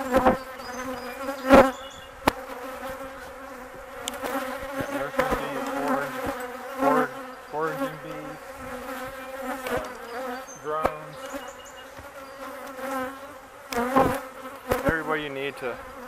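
Honey bees buzzing around the hive, their hum wavering and swelling as single bees fly close past the microphone. A few sharp knocks are heard, the loudest about one and a half seconds in.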